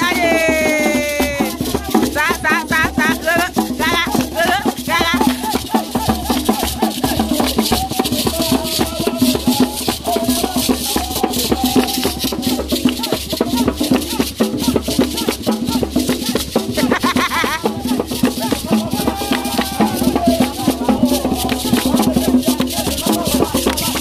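Several gourd rattles with bead netting shaken together in a fast, steady rhythm, with a group singing and shouting along.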